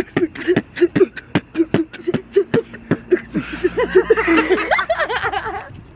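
People laughing and chuckling in short bursts, with a quick run of sharp clicks about four to five a second through the first half; the laughter grows louder and higher near the end.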